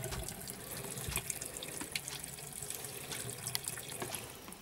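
Water running and trickling in a small sink, with scattered light drips and ticks.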